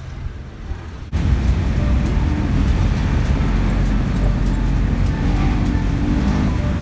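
Steady engine and road noise of a moving van heard from inside the cab, coming in abruptly about a second in and holding steady, with faint music underneath.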